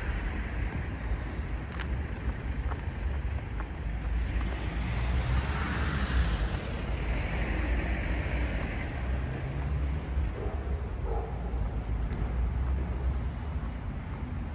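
City street ambience: traffic noise with wind buffeting the microphone as a steady low rumble, and a few faint high squeaks and clicks.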